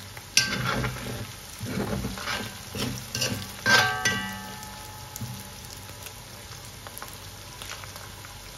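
Metal spoon stirring and scraping dry smoked catfish, onion, garlic and chili frying in oil in a metal wok. In the first few seconds the spoon knocks the pan several times, one knock about four seconds in ringing on for a second; after that the oil sizzles steadily.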